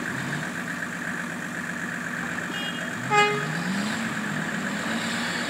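Off-road vehicle's engine running and revving up twice as it works through a deep mud bog. A short horn toot about three seconds in is the loudest sound.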